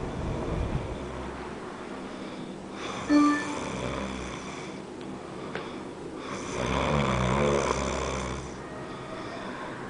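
A man snoring heavily in his sleep, long rasping snores, with a short, sharp loud sound about three seconds in and the loudest snore between about six and a half and eight and a half seconds in.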